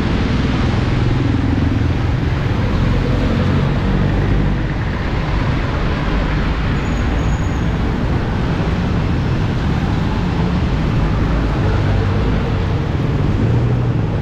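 Wet-road traffic: diesel jeepney and car engines rumbling past with steady tyre hiss on rain-soaked asphalt, over falling rain.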